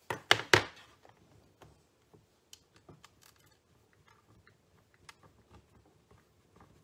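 An ink pad in its plastic case dabbed onto a rubber stamp: three sharp taps in quick succession, the third the loudest. Then faint, scattered light ticks as fingertips press and shift on the stamping platform.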